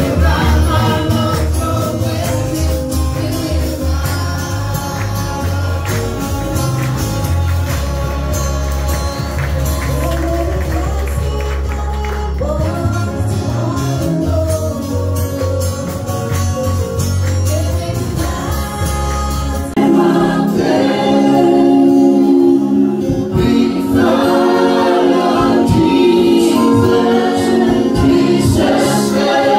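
Gospel worship music: a group of voices singing over a band with a heavy bass line. About two-thirds of the way through, the bass drops out and the singing grows louder.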